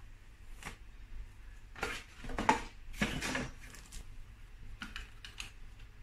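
Hands handling a plastic gas detector and its packaging: a few short rustles and clacks, the loudest about two to three and a half seconds in.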